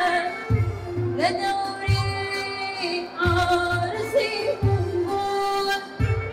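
A woman singing solo into a handheld microphone, holding long ornamented notes, over a low beat that thuds about every second and a half.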